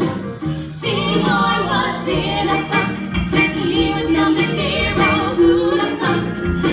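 A song from a live stage musical: several voices singing over instrumental accompaniment.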